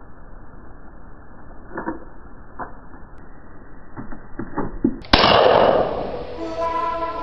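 A few soft clicks in a muffled hush, then a single gunshot about five seconds in: a sharp crack followed by a loud ringing tail that fades over about a second.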